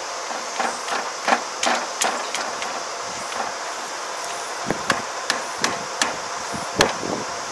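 Irregular sharp metal knocks and clanks, about a dozen, as the crop divider and tine parts at the front of a rice combine's cutting header are handled and fitted, with a steady hiss underneath.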